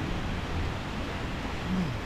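Steady wash of surf breaking on a sandy beach, mixed with a low wind rumble.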